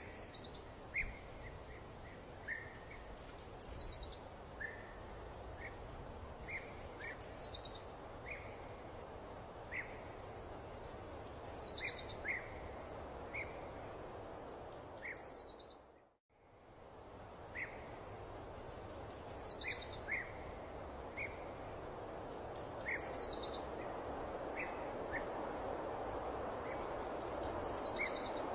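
Birdsong over a steady background hiss: a short descending trill repeated about every four seconds, with scattered single chirps between. The sound drops briefly to silence about halfway through.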